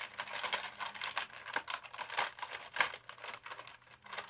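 Plastic wrapper of a seaweed snack pack crinkling and rustling as it is opened and handled, in irregular crackles.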